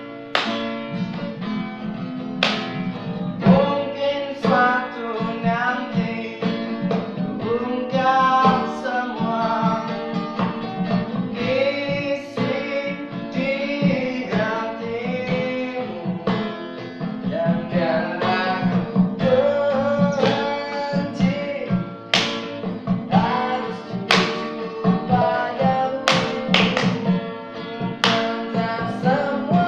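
Acoustic guitar strummed steadily under a male voice singing a pop-rock melody. A few sharp percussive hits cut in now and then, most of them in the last ten seconds.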